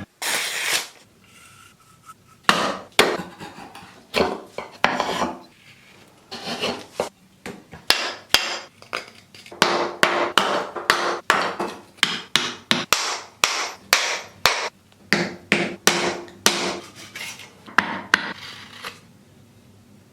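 Hand-tool work on an old axe: a quick series of sharp knocks and scraping strokes, coming about two a second in the busiest middle stretch.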